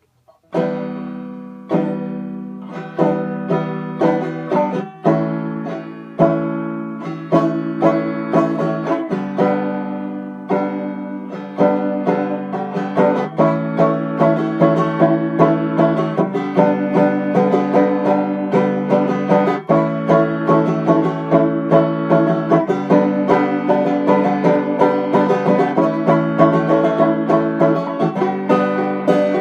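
A learner's banjo practice: a five-string-style banjo picked solo, first in separate notes and short phrases with small pauses, then from about twelve seconds in a steady stream of quick picked rolls.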